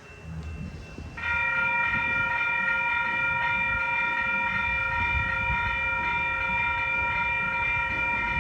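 Amtrak train's multi-chime air horn sounding one long, steady blast that starts about a second in, several notes held together as a chord. It is the warning sounded at a grade crossing, heard over a low rumble.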